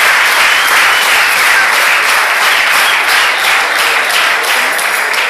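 An audience clapping in a large crowd, a dense steady applause that thins into more separate claps in the second half.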